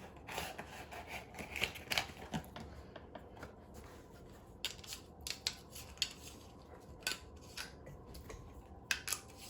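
Handling noise: irregular sharp clicks and light rustling as a compact fluorescent bulb and its packaging are picked up and handled, with a few louder clicks about two seconds in and near the end.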